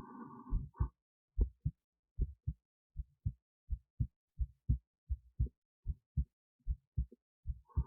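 Human heartbeat heard through an esophageal stethoscope resting near the heart: a steady lub-dub at about 80 beats a minute, each beat a pair of low thumps. A brief rushing noise lies over the beats in the first second.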